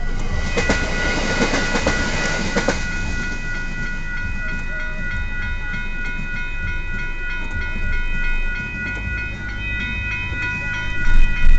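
Electronic level-crossing bells (E-bells) ringing a steady, rapidly repeated ding throughout. For the first three seconds or so a train passes, its wheels clacking over the rails. A low rumble swells near the end.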